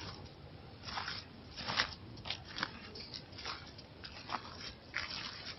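Footsteps crunching through dry fallen leaves, an uneven step roughly every half second to second.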